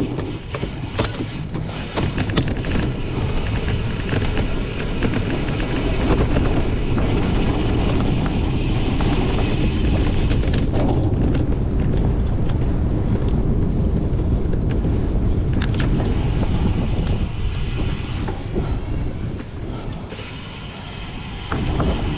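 Cyclocross bike ridden hard over a rough course: a steady rumble with constant rattling and clicking from the bike's chain and parts, easing for a moment near the end.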